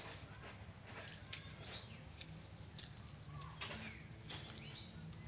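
Hens foraging, with scattered clicks and rustles as they peck and scratch in dry leaves and gravel, and a few short high falling chirps.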